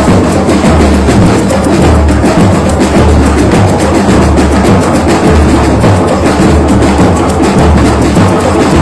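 A batucada drum group playing: deep bass drum beats a little more often than once a second, under a dense, steady run of sharp drum and percussion strokes.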